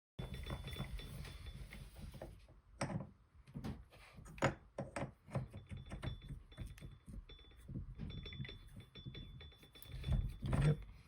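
Craftsman 618 metal lathe at work on a pulley bore: a low hum and a faint high whine that comes and goes, broken by irregular metallic knocks and clicks. The knocks are loudest near the end.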